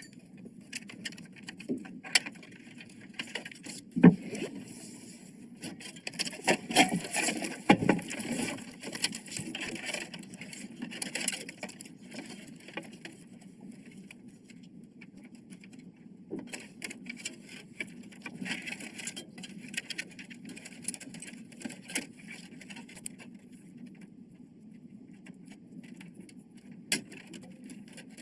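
Handling noise from computer parts being assembled: irregular clicks, light knocks and scraping of plastic and metal pieces, with a sharper knock about four seconds in and busier clicking and scraping in two stretches.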